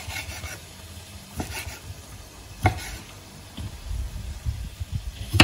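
Kitchen knife cutting cherry tomatoes on a wooden cutting board: a few sharp knocks of the blade meeting the board, the loudest near the end.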